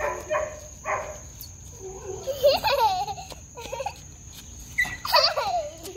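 Children's voices laughing and calling out, with wavering pitched laughs about two and a half and five seconds in.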